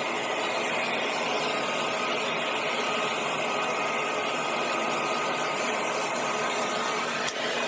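Vacuum cleaner with a power head running steadily, a constant whooshing hum with a faint motor whine. A single sharp click comes near the end.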